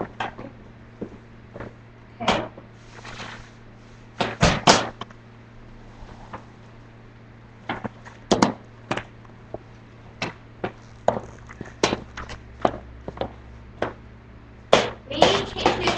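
Quad roller skates on a hard floor: irregular clacks and thumps as the skaters step, stomp and land, the loudest about four and a half seconds in.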